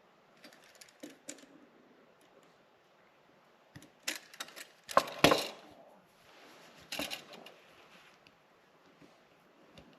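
Scattered clicks and knocks of hard objects being handled, with a cluster of louder knocks about four to five and a half seconds in and another near seven seconds.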